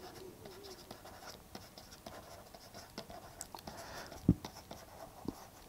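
Stylus faintly scratching and tapping on a pen tablet during handwriting, with a soft thump about four seconds in and another just before the end.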